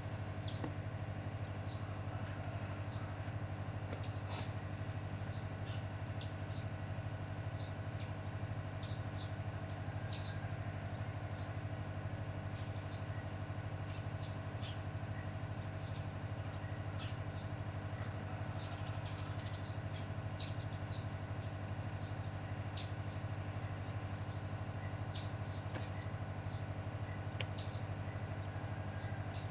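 Small birds chirping: short, high, falling chirps come one or two at a time, irregularly, over a steady low hum and a faint high whine.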